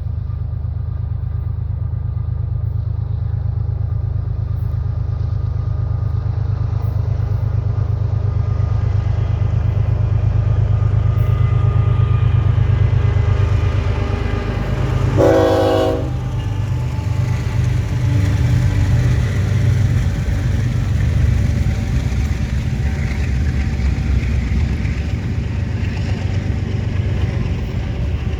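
BNSF diesel freight locomotive and train passing close by with a heavy, steady engine rumble, and the locomotive's horn giving one short blast about halfway through.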